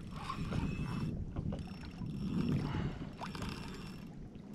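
Water lapping and sloshing against a kayak's hull as it moves over a gentle sea swell, with scattered small knocks and ticks.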